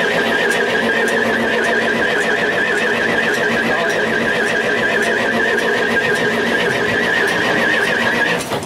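Volvo BM 642 wheel loader's diesel engine running steadily just after a cold start, the machine having stood for four to five months, with a high wavering whine over the engine note. The sound cuts off suddenly near the end.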